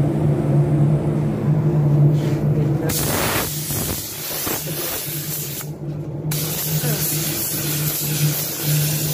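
Compressed-air paint spray gun hissing as it lays a wet coat of clear coat onto a car body panel. The hiss starts about three seconds in and breaks off briefly midway as the trigger is released. A steady low hum runs underneath.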